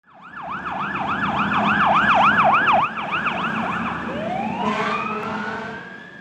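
Emergency siren in a fast yelp, about four up-and-down sweeps a second, switching a little after four seconds in to a slow rising wail that then holds and fades out near the end.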